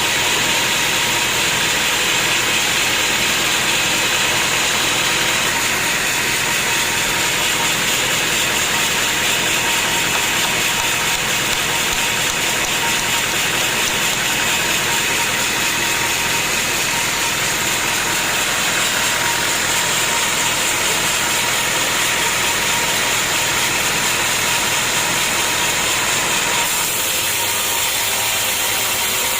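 Sawmill machinery running steadily, a continuous loud mechanical noise with a steady hum; the tone shifts slightly near the end.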